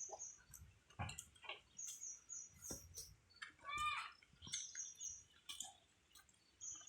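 Buffalo grazing: irregular crunches and rustles of grass being torn and chewed. Short high chirps come and go throughout, and a brief call sounds near the middle.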